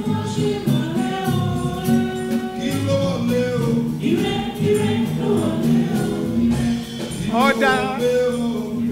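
Gospel music with a group of voices singing over instrumental backing, one voice wavering strongly near the end.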